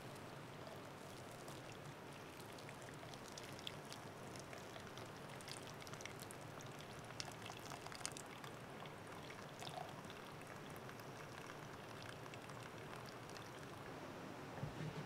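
Hot water poured in a thin stream from a kettle onto coffee grounds in a mesh pour-over filter: a faint steady trickle with scattered small drips and ticks.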